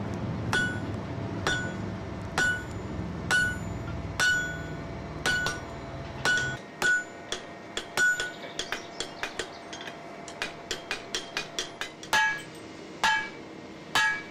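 Hammer blows on red-hot steel on an anvil, each with a bright metallic ring, as the sides of a forged bottom swage tool are dressed. The heavy blows come about once a second, then give way to quicker, lighter taps about three a second, and near the end to three heavier blows with a lower ring.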